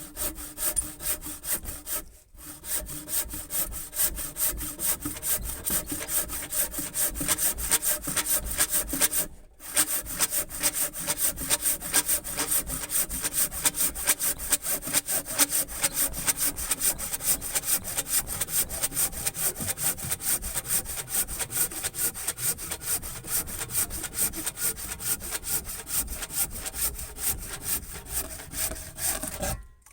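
Stanley Jet Cut handsaw cutting through a piece of freshly cut wood in steady, rapid back-and-forth strokes, pausing briefly twice early on before sawing on and stopping as the cut finishes. The saw cuts easily without extra pressure and gets through in about 30 seconds.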